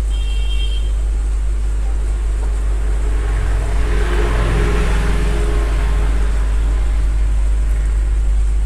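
Steady rain with heavy wind rumble on the microphone. A louder, hissing swell rises and falls in the middle.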